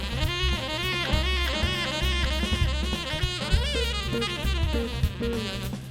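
Background music: jazz with saxophone melody over drums and bass.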